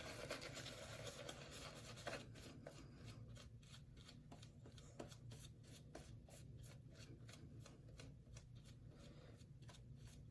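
Synthetic shaving brush working soap lather on the face: faint, quick, even strokes, about four a second.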